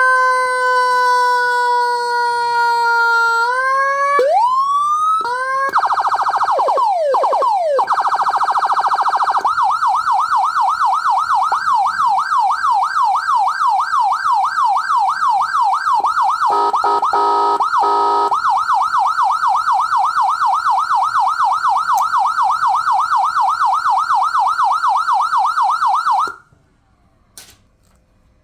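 A 200-watt electronic siren sounding through a siren speaker as it steps through its tones. It starts with a slowly falling wail, then a few quick rising whoops and a fast warble, then a rapid yelp of about four up-and-down sweeps a second, briefly broken by a harsher stepped tone. It cuts off suddenly near the end.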